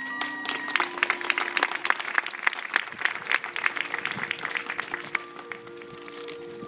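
High school marching band playing: a held brass chord stops about a second in, followed by several seconds of rapid, sharp hits. Sustained horn notes come back in near the end.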